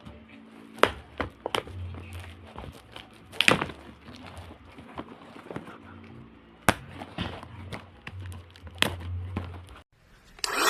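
Scattered sharp clicks and knocks of the portable handheld vacuum cleaner's plastic parts being handled. Near the end the vacuum's motor switches on with a loud steady whir.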